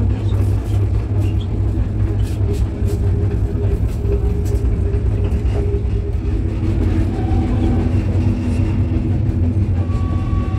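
Diesel narrow-gauge train running, heard from inside a wooden carriage: a steady low rumble with scattered clicks and rattles, and a droning tone that shifts in pitch about halfway through.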